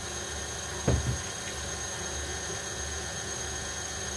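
Electric stand mixer running steadily, whisking an egg-and-sugar sponge batter, with a single knock about a second in.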